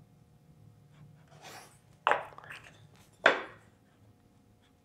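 CNC-cut plywood test pieces being handled and set down on a saw table: a soft slide, then two light wooden knocks a little over a second apart.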